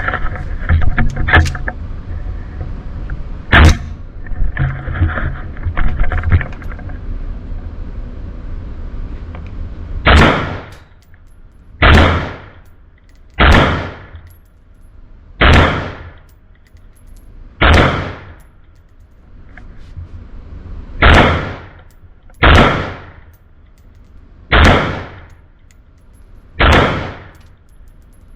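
Ruger AR-556 5.56 rifle fired nine times in slow, aimed semi-automatic shots, about one every one and a half to two seconds, each with a short echo. Before the shooting there are several seconds of clattering handling knocks, one of them sharp and loud.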